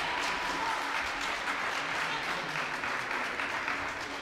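Spectators applauding in a large sports hall after a rally, dense steady clapping that eases slightly near the end.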